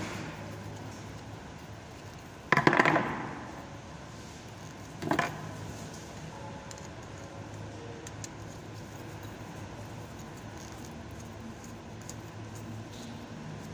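Two metallic clanks over a steady low hum: a loud clattering one about two and a half seconds in, with a short rattle after it, and a shorter, softer one near five seconds.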